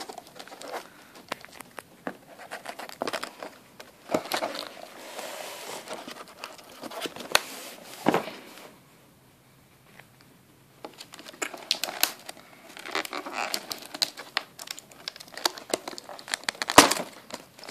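Cardboard laptop box being handled and pried at while someone works out how to open it: rustling, scraping and sharp taps of the cardboard and its plastic carry handle, with a quieter pause about nine seconds in.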